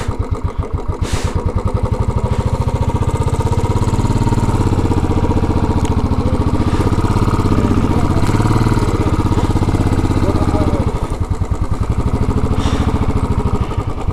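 Single-cylinder Royal Enfield motorcycle engine running at low road speed, a steady, even pulse whose pitch rises and falls a little as the throttle is eased on and off.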